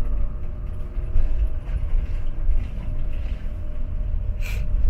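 Motorhome driving slowly, its engine and road noise a steady low rumble, with a short sharp noise near the end.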